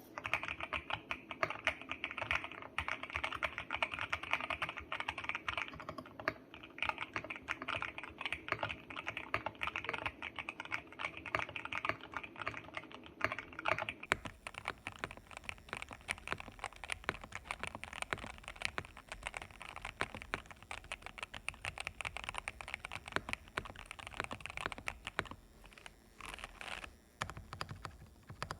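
Continuous fast typing on a GMK67 mechanical keyboard with Gateron Milky Yellow linear switches and double-shot PBT keycaps, tape-modded and foamed. About halfway through, the sound switches to a second microphone that picks it up with more hiss.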